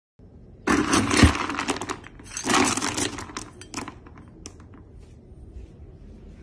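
A metal scoop digging through dry dog kibble in a plastic storage bin, the pellets rattling and clattering in two bursts over about three seconds, followed by a few light clicks.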